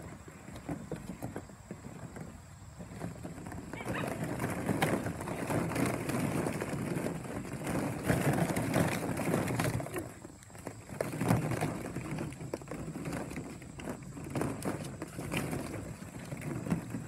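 Hollow plastic ball-pit balls clattering and knocking against each other and the plastic kiddie pool as Irish Setter puppies scramble through them. It is a continuous jumble of small clicks that swells and fades, with a brief lull about ten seconds in.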